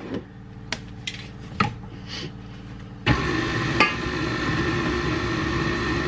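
A few sharp knocks and clinks, then about halfway through a KitchenAid stand mixer switches on and runs at a steady hum, stirring sugar and molasses together into brown sugar.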